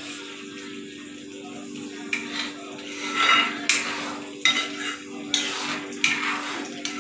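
Metal spoon stirring and scraping a thick gravy in a black kadai, with repeated knocks of the spoon against the pan, starting about three seconds in.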